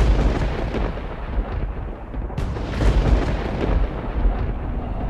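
Deep, continuous rumbling booms with sharp cracks at the start and again about two and a half seconds in, like thunder or heavy explosions.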